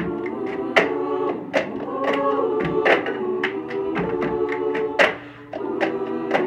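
A cappella vocal group singing sustained, close-harmony chords over a rhythmic pattern of red plastic cups tapped and thumped on a counter: cup-game percussion.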